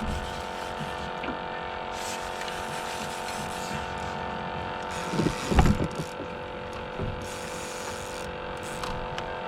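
A steady hum of several even pitches, with a short cluster of knocks and thumps about five seconds in, the loudest sound.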